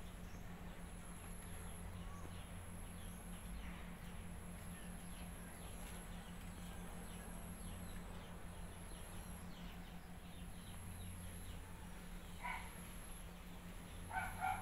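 Quiet rural background with a steady low hum and an insect's thin high-pitched tone that starts and stops every second or two. Near the end a dog barks, once and then a couple of quick times.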